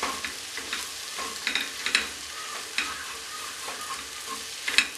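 A spatula stirring and scraping onion-tomato masala around a stainless steel pressure cooker, with irregular scraping strokes over a steady sizzle of the frying masala. The tomatoes are being sautéed into the spiced onion base until they cook down.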